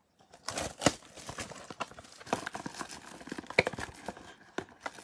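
Clear plastic shrink wrap being torn and crumpled by hand off a trading-card blaster box: irregular crinkling and crackling, with sharper crackles about a second in and again a little past three and a half seconds.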